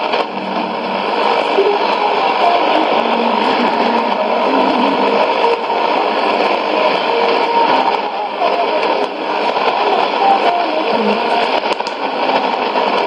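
Shortwave AM broadcast of Radio Afghanistan's Urdu service on 6100 kHz, played through a Sony ICF-2001D receiver's speaker. It is a weak signal: faint fragments of the programme sit under a steady loud hiss of static.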